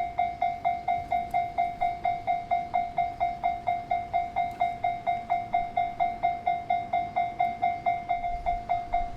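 Japanese railway level crossing warning bell ringing: a single electronic 'kan-kan' tone repeating evenly about three times a second, signalling that a train is approaching.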